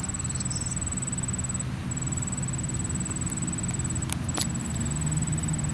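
Steady low rumble of highway traffic. A high, rapid ticking tone comes and goes in stretches of one to two seconds, and there are two short clicks about four seconds in.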